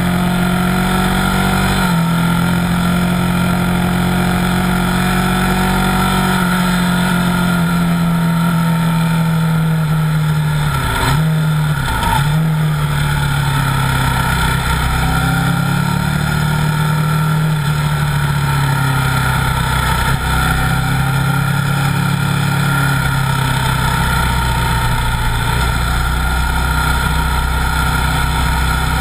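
Buell 1125R's liquid-cooled V-twin engine running hard at track speed, its note rising and falling with the throttle, with two quick breaks in the note near the middle.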